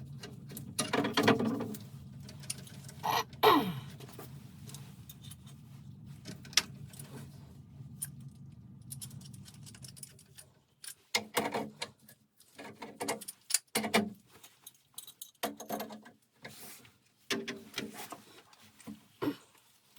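Metal tools and threaded gas pipe fittings clinking and rattling as a water heater's gas regulator is unscrewed and handled, with a short falling squeak a few seconds in. A low steady hum runs underneath and stops about halfway through.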